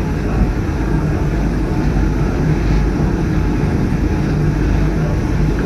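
Electric rack-railway railcar running steadily along the track, a continuous rumble and motor hum heard from inside the driver's cab.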